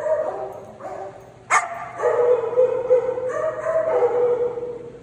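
Dogs vocalizing in rough play: a single sharp bark about a second and a half in, then long, drawn-out steady-pitched dog cries.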